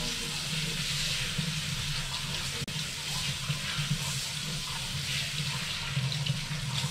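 Tap water running steadily from a single-lever faucet into a vessel sink, splashing over hands being washed under the stream.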